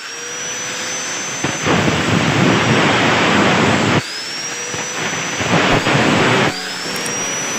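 Angle grinder with a cutting disc spinning up with a rising whine, then cutting through a steel bicycle frame tube, the grinding getting louder as the disc bites into the metal. The whine starts up again twice, about four and six and a half seconds in.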